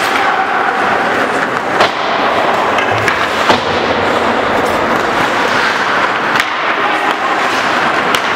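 Ice hockey in play: skates scraping on the ice under a steady hiss, with about four sharp knocks of stick, puck and boards, the loudest about three and a half seconds in.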